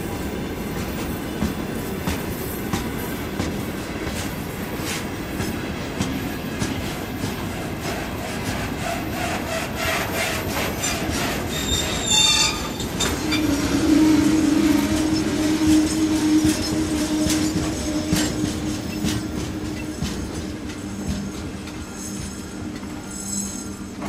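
Freight train of railway tank wagons rolling past close by, wheels clattering rhythmically over the rail joints. About halfway through there is a sharp high screech, followed by a steady tone that holds for several seconds.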